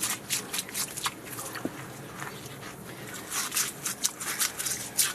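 Cleaning brush scrubbing a bird bath basin in quick back-and-forth strokes, with a quieter stretch in the middle.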